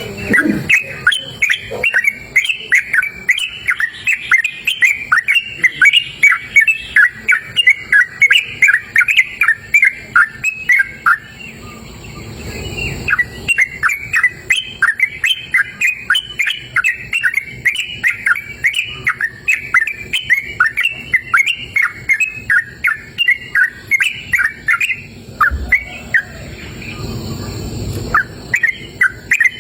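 Yellow-vented bulbul (trucukan) singing in a fast, continuous run of bubbly chirping notes. It pauses briefly twice, and during each pause a faint low rumble comes up.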